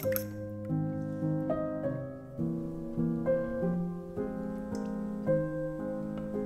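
Background piano music, a steady run of changing chords and notes.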